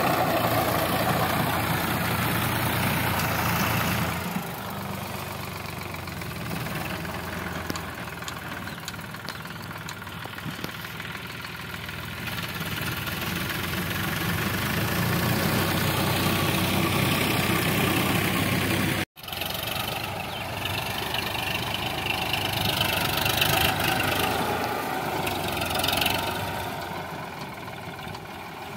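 Sonalika DI 745 tractor's diesel engine running steadily under load while its rear rotavator tills the soil. The sound cuts out for an instant about two-thirds of the way through.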